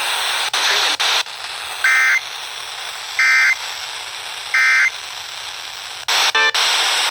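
Emergency Alert System SAME data bursts: three short, identical warbling two-pitch digital screeches about a second and a half apart, the End of Message code that closes the warning broadcast, over radio static. A brief louder buzzy burst follows about six seconds in.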